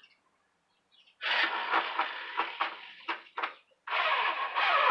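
Power drill driving screws into wooden boards, in two runs of a couple of seconds each, starting about a second in, with a brief pause between them.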